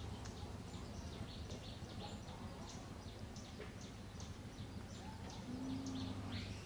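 Small birds chirping over and over in the background, many short high calls, over a steady low hum; a brief louder low tone comes in about five and a half seconds in.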